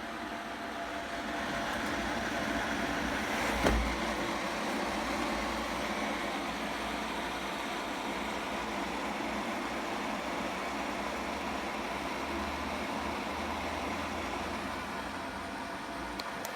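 A CLC360 closed-loop liquid cooler's fans running steadily, with a single knock about three and a half seconds in.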